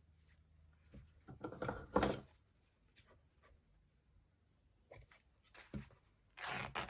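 Cotton fabric scraps rustling as they are handled and smoothed flat by hand, louder about a second and a half in and again near the end, with a few light taps in between.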